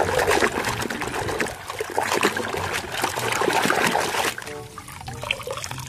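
Water splashing and trickling as a muddy toy vehicle is washed by hand, stopping about four seconds in.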